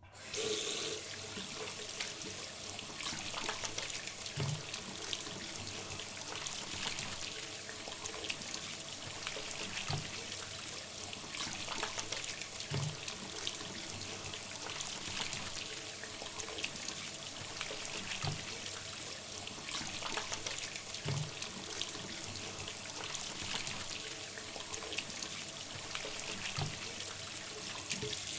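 Hands being washed under a running tap: water streams steadily into a sink. A few short, soft low thumps come every few seconds.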